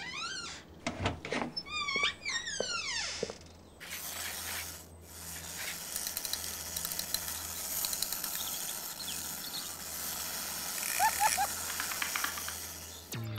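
Clockwork wind-up mechanism whirring with dense, even clicking, from about four seconds in. Before that, a few quick falling pitched sweeps.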